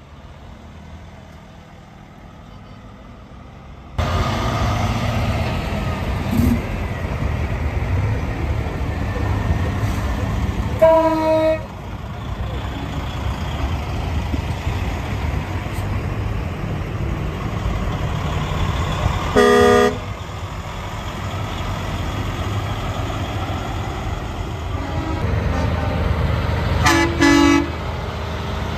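Heavy trucks' engines rumbling steadily, louder from a few seconds in, with three short truck horn blasts spread through, the first the loudest.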